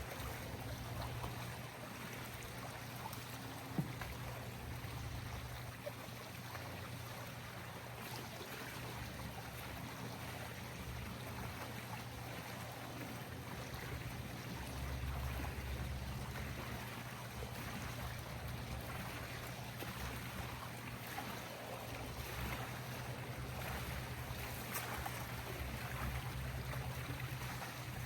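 Steady rushing noise over a low, steady hum.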